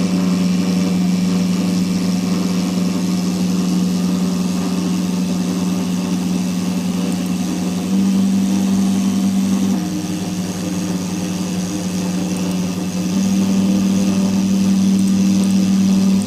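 CNC router engraving text with a V-bit: a steady machine whine from the spindle and drive motors, its pitch stepping up and down a few times as the cutter changes course along the letters.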